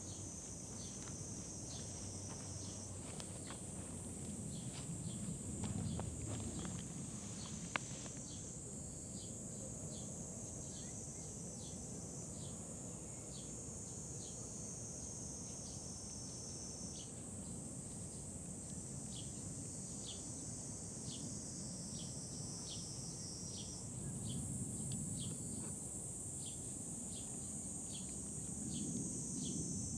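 Steady high-pitched shrilling of insects, with a faint, regular ticking call about twice a second. A low rumble swells up a few times, and there is a single sharp click about a quarter of the way through.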